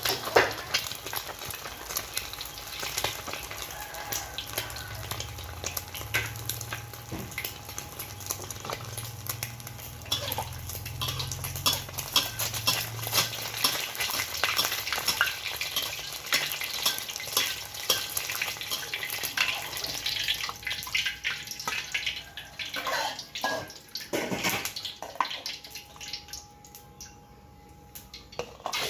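Food sizzling in hot oil in a pan, with a metal spatula repeatedly scraping and clattering against the pan. The clatter eases off for a couple of seconds near the end.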